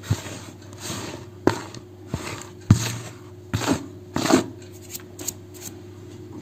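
Fingers raking through a heap of dry flour in a bowl, making soft rustling scrapes broken by several sharp knocks against the bowl. The knocks stop about two seconds before the end.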